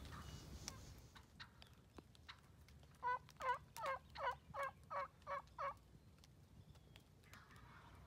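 A wild turkey yelping: a run of eight evenly spaced yelps, about three a second, lasting close to three seconds.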